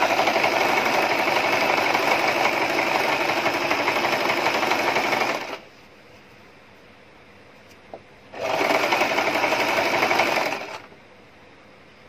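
Electric domestic sewing machine stitching a seam at a steady fast speed for about five and a half seconds, stopping, then running again for about two seconds and stopping.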